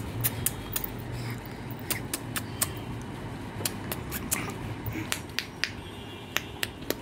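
A run of sharp, irregularly spaced clicks, about two or three a second, over a faint low hum.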